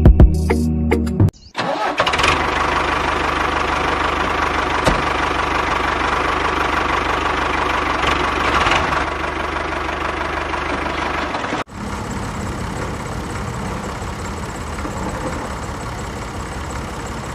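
Motor of a DIY mini tractor-bulldozer running steadily under work, in two clips joined by an abrupt cut about two-thirds through, the second a little quieter. Background music plays briefly at the very start.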